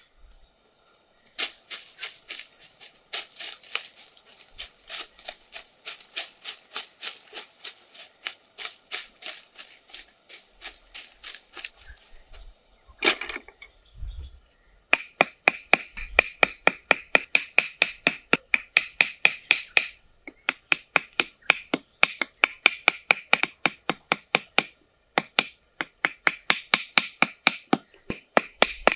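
A hand tool striking material in a steady rhythm, about two to three blows a second. The blows are softer in the first half and sharper and louder from about halfway, with a short ring on each.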